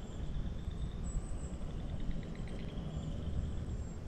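Frogs calling in chorus: faint, rapid pulsed trills repeating over a steady low rumble.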